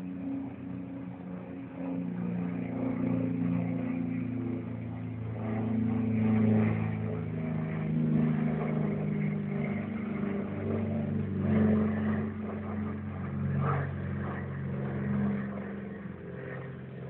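Road traffic: car engines running and passing, several overlapping engine tones slowly rising and falling in pitch.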